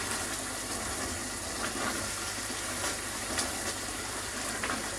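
Curry sauce bubbling and sizzling as it reduces in a cast-iron Dutch oven, a steady hiss with small scattered pops and ticks.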